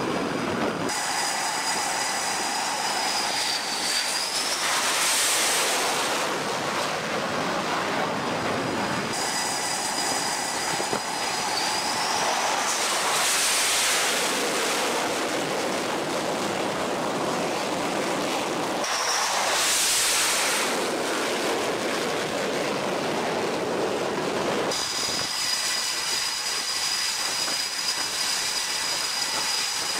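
F/A-18F Super Hornet jet engines running on a carrier flight deck: a steady roar with a high whine that glides up and down, swelling loud three times, about 5, 13 and 20 seconds in. The sound changes abruptly several times.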